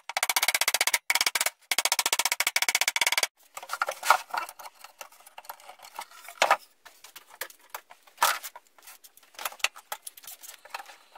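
Wooden mallet tapping fast and repeatedly on a plywood box, stopping abruptly about three seconds in. After that come scattered light knocks and clicks of wood and bar clamps being handled.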